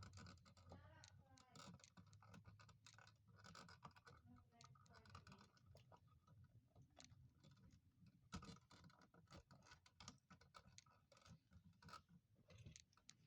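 Faint scratching and scattered light clicks of objects being handled, with faint voices at times in the background.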